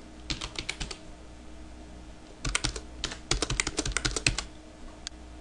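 Computer keyboard typing: a short run of keystrokes under a second in, then a longer fast run from about two and a half to four and a half seconds, with a single click near the end.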